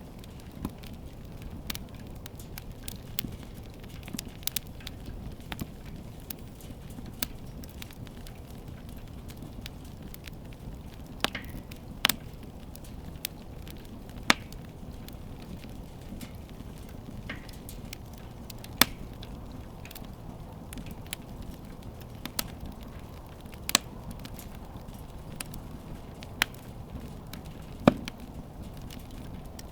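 Wood fire crackling: sharp, irregular pops and snaps, some much louder than the rest, over a low steady rumble of the burning fire.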